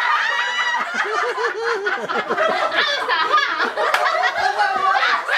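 Several people laughing together, their voices overlapping in quick bursts of laughter.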